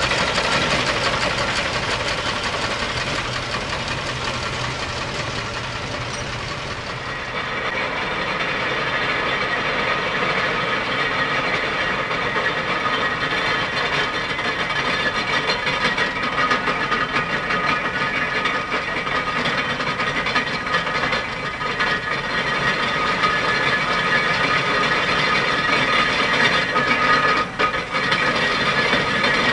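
Steam traction engine running as it tows a passenger trailer past on a tarmac road. About seven seconds in, this gives way to the steady mechanical running, with fine rapid ticking, of a miniature steam roller coming up the road.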